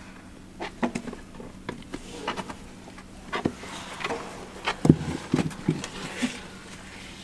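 Eurasian beavers shuffling about in straw and wood-chip bedding: irregular rustling, scratching and sharp knocks, the loudest knocks about five seconds in, over a faint steady low hum.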